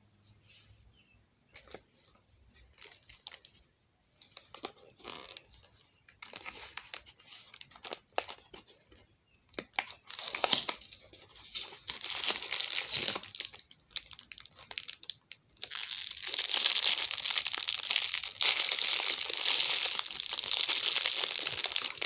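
Packaging of a pack of squishy stress-ball fidget toys being opened: faint scattered handling clicks at first, then a cardboard box and its plastic contents being pulled and rustled from about ten seconds in. From about sixteen seconds a clear plastic bag crinkles and tears continuously and loudly.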